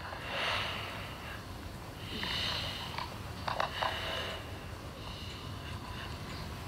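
A person's quiet breathing and sniffs: two short breaths, about half a second and two seconds in, then a few soft clicks.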